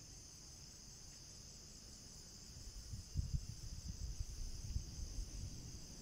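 Steady, high-pitched chorus of insects in grassland and forest. From about three seconds in, a louder low rumble of gusts buffets the microphone for a couple of seconds.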